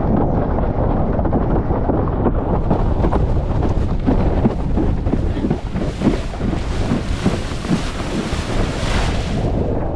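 Heavy wind buffeting on the microphone of a GoPro Hero 10 on a windsurf rig, over the rush and hiss of water as a Starboard iSonic 77 slalom board planes across chop. The hiss grows brighter about two seconds in and falls away again just before the end.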